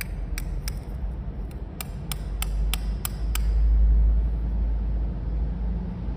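Hard plastic toy chocolate balls clicking against each other in the hands: about nine sharp, short clicks in the first three and a half seconds. A steady low rumble runs underneath and is loudest about four seconds in.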